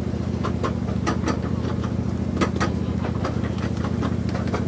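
Miniature ride-on train running along its track: a steady low engine hum with irregular clicks and clacks over it.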